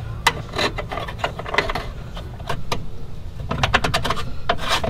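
Irregular small metallic clicks and rattles of a bolt being threaded by hand into a steel mounting bracket, coming thicker near the end as the thread catches.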